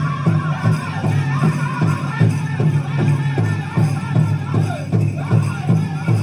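Dance music with a steady, even drumbeat, shaking jingle-and-rattle percussion and a wavering voice over a low steady hum, accompanying a Native American-style dance.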